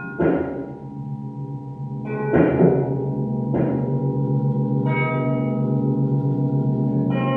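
Ambient sound-art music from wired long wooden zithers: about five struck, gong-like tones, each ringing on in several pitches, over a steady low pulsing drone that grows louder about two seconds in.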